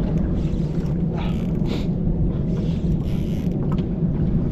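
Steady low rumble with a low hum on a small aluminium boat at sea, with a few faint knocks and scrapes.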